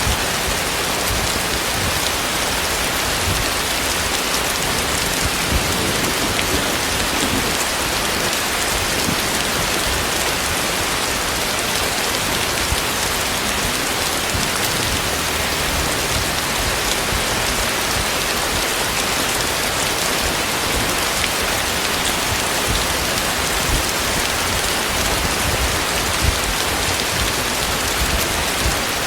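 Heavy rain falling steadily, a dense even hiss of drops hitting surfaces, with now and then a slightly louder drop hit.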